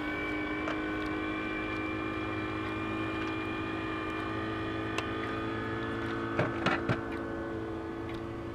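Boat motor running at a steady speed, an even drone with a constant whine. A few sharp knocks sound about six and a half to seven seconds in.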